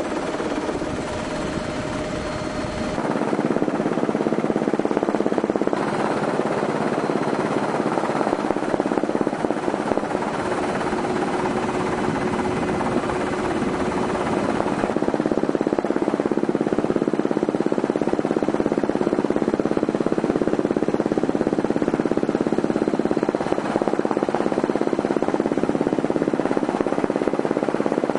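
Helicopter rotor and engine noise, a dense steady chopping drone, heard from aboard the aircraft; it steps up in loudness about three seconds in.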